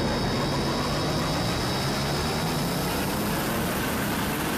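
Sound-design effect of a deep, grinding rumble, the eerie grumbling sound in the story, with thin high whining tones above it; about halfway through, higher tones join as the sound climbs in pitch.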